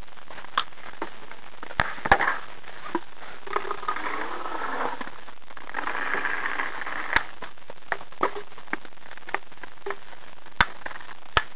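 Paintball markers firing: scattered sharp pops, some single and some in quick pairs, over a steady background hiss.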